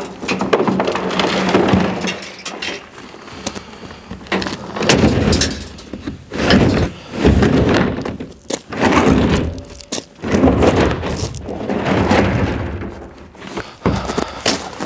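An IBC tote's plastic tank and steel wire cage being handled and tipped over, with a run of irregular bangs, knocks and scraping of plastic and metal.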